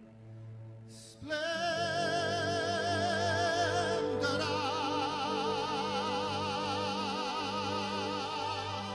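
A male singer holding long operatic-style notes with wide vibrato over backing music: after a short dip, one note held for about three seconds, then a second held for about four and a half.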